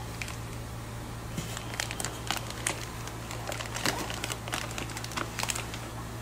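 Clear plastic fish bags crinkling as they are handled and lifted out of a styrofoam shipping box, a run of quick crackles from about a second and a half in until near the end, over a steady low hum.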